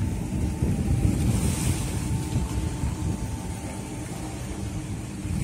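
Wind rumbling and buffeting on the microphone over a faint steady mechanical hum, with no speech.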